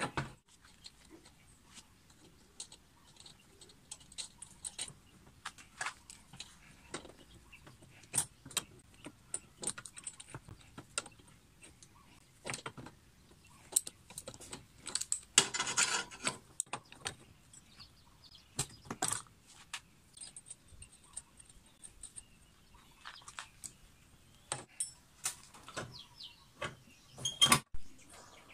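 Scattered metallic clinks and clicks of a wrench and a steel pulley being handled while the pulley is fitted onto a bench-grinder motor's shaft. There is a denser rattling stretch about halfway through and a loud cluster of clinks near the end.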